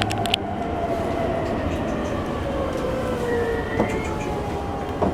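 E231 series electric train running with a motor whine that glides steadily down in pitch, the sign of the train slowing under braking, over steady running rumble.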